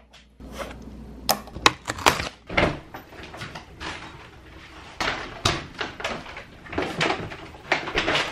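A house door being opened, with a run of knocks and clicks, then paper grocery bags rustling as they are carried in.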